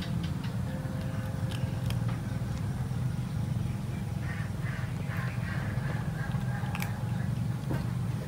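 A kitten crunching dry cat kibble: scattered short, sharp crunches and clicks over a steady low rumble.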